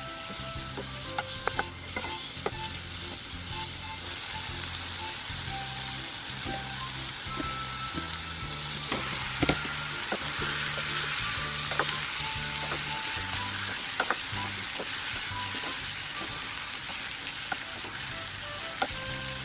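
Chicken thigh pieces, then chunks of bottle gourd, sizzling in a pot on medium heat as they are stir-fried with a wooden spoon. The spoon knocks against the pot now and then with sharp clicks. Background music with low stepped notes plays under it.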